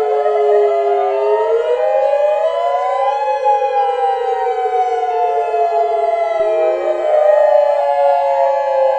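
Electronic siren sound effect: several overlapping siren tones glide slowly up and down in pitch, new sweeps starting on top of older ones, in the manner of a civil-defence siren.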